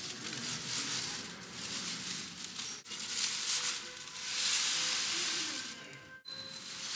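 Aluminium foil crinkling and rustling as it is pulled and crumpled by hand off a plastic-wrapped bundle of carrots. It comes in uneven stretches, loudest a little past the middle, and breaks off abruptly twice.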